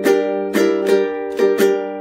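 Soprano-style ukulele strummed on a G minor 6 chord: five quick strums, each ringing on until the next.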